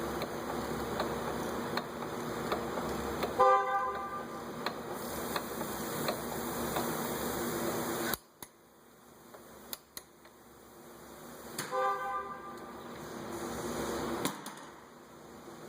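Two short car-horn honks about eight seconds apart, over a steady background hum that stops suddenly about eight seconds in.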